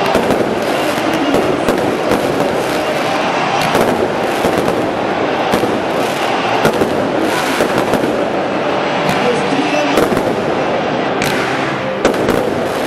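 Fireworks display: a dense, unbroken barrage of shells bursting, with many sharp bangs over continuous crackling.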